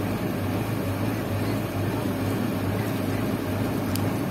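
A passenger riverboat's engine running steadily under way, a constant low hum.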